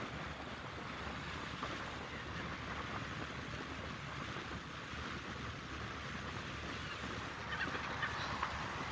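Steady rush of wind and water aboard a moving ferry. Near the end, gulls call several times over it.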